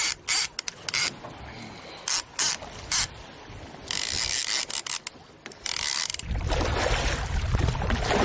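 Fishing reel ratcheting in short bursts as line is cranked in against a hooked fish. About six seconds in, a steady rush of splashing water and wind takes over.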